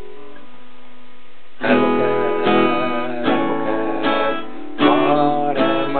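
Acoustic guitar: a chord rings and fades, then strummed chords start about a second and a half in, one strum roughly every three-quarters of a second.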